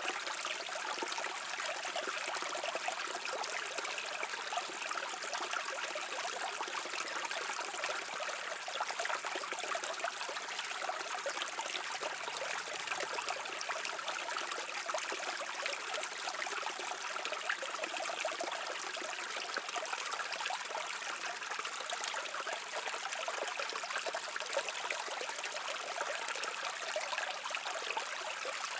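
A brook's water running steadily over stones, an even babbling and trickling.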